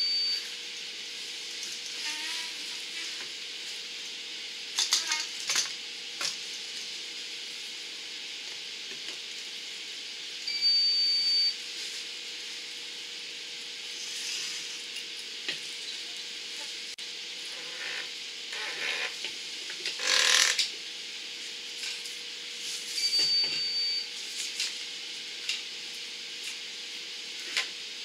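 PVC sump-pump discharge pipe being handled and fitted onto a submersible pump: scattered scraping, rubbing and knocks of plastic pipe on pump and floor over a steady hiss and faint hum. A short high beep sounds twice, about twelve seconds apart.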